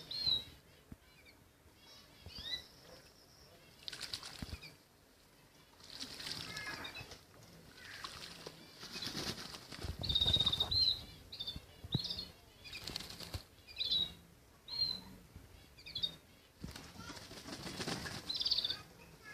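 Pigeons flapping their wings in repeated bursts of rustling wingbeats, with short high chirps in between.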